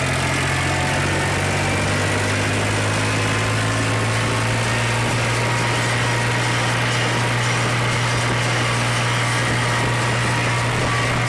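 Mahindra tractor's diesel engine running steadily with an even, unchanging hum.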